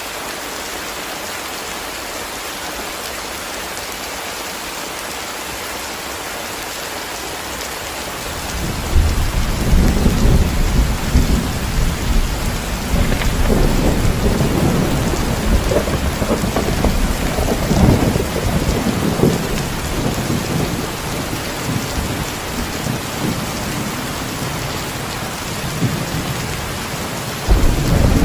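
Steady heavy rain hissing. About a third of the way in, a long roll of thunder breaks in and rumbles for several seconds before easing, and another thunderclap starts near the end.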